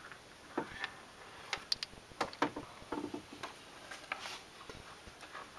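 Faint, irregular clicks and taps with a little rustle, handling noise from a handheld camera being moved around.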